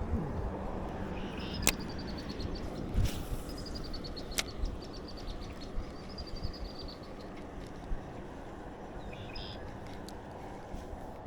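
Open-air noise of wind and water around a boat, with a small bird's rapid trill of high ticks repeated three times and a couple of sharp clicks.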